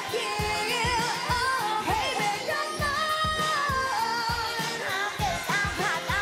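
A female K-pop group's dance-pop song, with a woman's voice singing the melody over a steady electronic beat and a regular kick drum.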